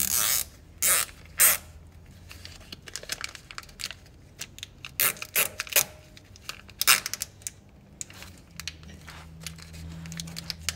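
Nylon cable tie being pulled tight around a small plastic bag, its ratchet zipping and clicking in short pulls, with the bag crinkling in sharper rustles.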